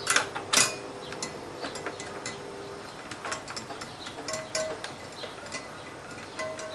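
Small metal clicks and taps of a hand tool undoing the rim lock nut on a motorcycle wheel, with two sharper clicks at the start.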